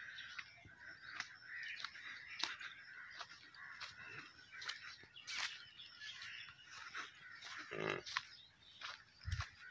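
Many birds chirping and calling in a steady outdoor chorus, with a brief lower-pitched sound about eight seconds in and a low thump near the end.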